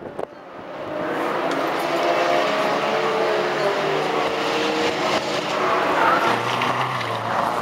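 Engines of small saloon race cars, Renault 8s among them, running hard as a group comes through a bend. Several engine notes sound at once and rise and fall in pitch, swelling over the first second as the cars approach.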